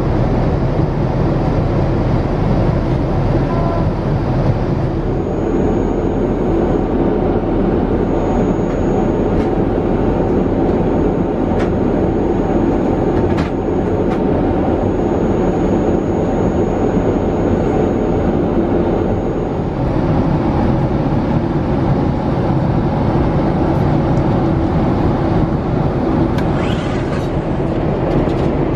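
Steady cabin noise of a Boeing 787-8 airliner in cruise: engine and airflow rumble with a constant hiss. It shifts slightly in tone twice, and there are a couple of faint ticks midway.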